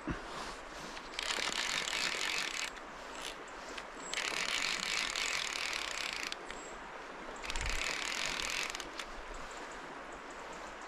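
Fly reel's click-and-pawl drag ratcheting in three spells, each a second and a half to two seconds long, while a hooked fish is played on the rod.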